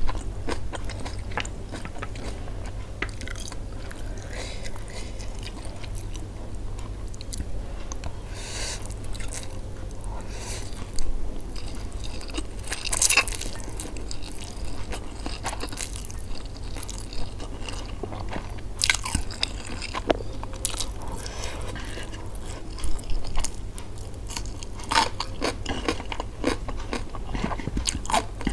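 Close-miked eating sounds of fried instant noodles (Indomie goreng): slurping noodles, chewing and lip smacks, with a few louder slurps scattered through. A steady low hum runs underneath.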